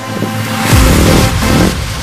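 Motocross dirt bike engine revving hard as it passes close by, loudest from about a second in, with music playing underneath.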